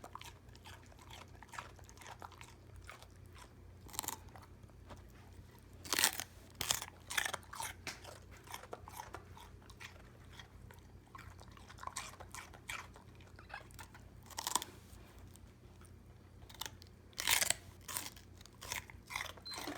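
Raw celery being bitten and chewed: crisp crunches in bursts, with quieter pauses between mouthfuls.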